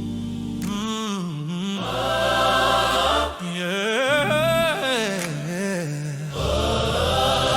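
Gospel choir harmonies in a cappella style, with a lead voice sliding through melismatic runs over sustained low bass notes.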